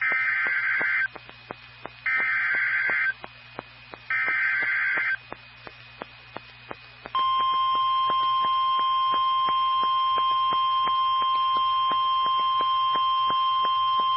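NOAA Weather Radio Specific Area Message Encoding (SAME) header: three short bursts of warbling digital data, each about a second long and a second apart. About seven seconds in, the steady 1050 Hz weather radio alert tone comes on and holds, signalling that a warning is about to be read. Faint regular clicks run underneath.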